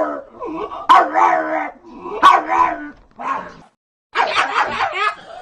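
Dog barking, with each bark drawn out into a short howl-like cry, three of them in the first three and a half seconds. After a brief gap about four seconds in, a quicker run of yapping cries follows.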